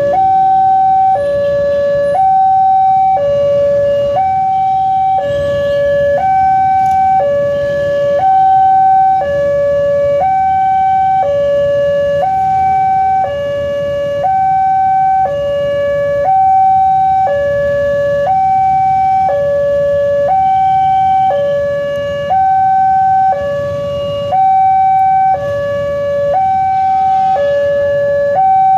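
Indonesian railway level-crossing alarm sounding its electronic two-tone warning, switching between a higher and a lower tone about once a second, the signal that the barriers are down and a train is approaching.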